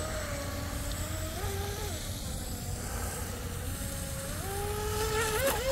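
A Proboat Recoil 2 18-inch RC boat's brushless motor whining as it runs on the water, rising in pitch with throttle about a second and a half in, easing back, then rising again near the end with a few quick throttle changes.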